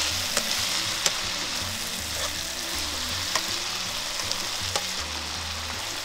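Mushrooms and onion frying in a hot pan: a steady sizzle, with a few light clicks from the utensil or pan.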